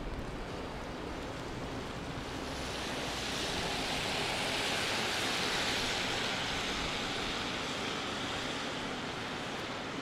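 A vehicle passing on wet pavement: the hiss of tyres on the wet road swells about two seconds in, peaks midway and fades away near the end, over a steady background hiss.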